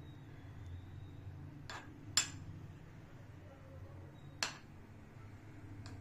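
A metal spoon clinks against glass as sauce is spooned from a bowl and spread over a glass baking dish. There are several sharp clinks: the loudest about two seconds in, another about four and a half seconds in, and fainter ones before and near the end. A low steady hum runs underneath.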